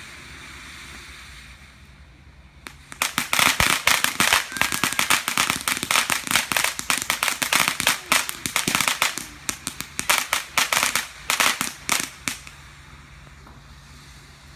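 Firecrackers going off in a rapid, uneven string of sharp cracks for about ten seconds, starting about three seconds in over a steady wind hiss.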